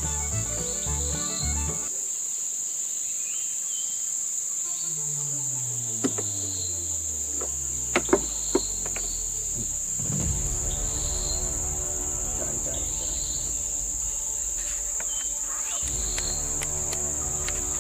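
Steady, high-pitched insect drone, unbroken throughout, over background music with a pulsing bass that drops out for a stretch in the middle. A few sharp clicks fall close together just past the middle.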